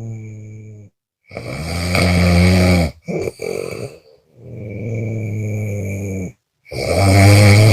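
A person snoring loudly on both the in-breath and the out-breath. There are low-pitched snores about two seconds long with short silent gaps between them, and a couple of brief broken snores a little before the middle.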